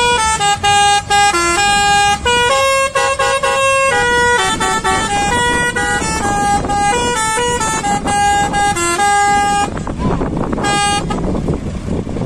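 Grocery lorry's telolet horn playing a fast tune of short, stepped notes for nearly ten seconds. After a final short note, a steady rumble is left.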